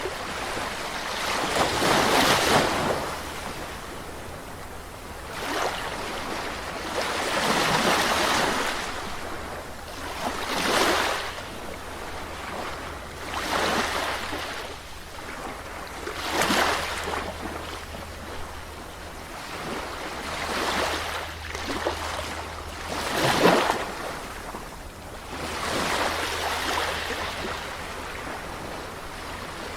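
Small sea waves breaking and washing up a beach, one after another about every three seconds, with a steady low rumble of surf underneath.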